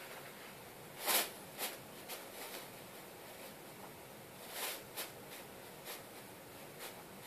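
Thin clear plastic bag crinkling in short rustles as a cat shifts and paws on and under it. The loudest crinkle is about a second in, with a second cluster around the middle and a few fainter ones after.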